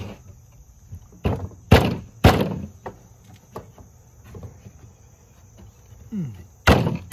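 Wooden brooder frame parts knocking together as they are pressed and fitted by hand: a handful of separate knocks, the loudest about two seconds in and another near the end, with a short falling squeak just before that last one.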